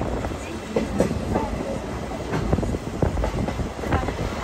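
Oigawa Railway steam train rolling along the track, heard from aboard: a steady low rumble with irregular clacks and knocks of the wheels over the rails.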